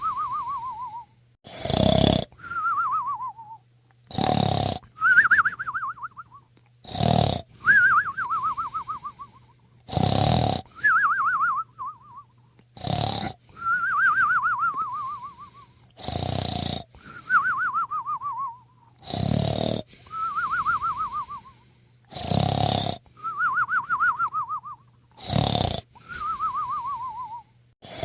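Snoring in a regular cycle about every three seconds: a loud rasping snore, then a short fluttering whistle that falls in pitch, over and over. A faint steady hum runs underneath.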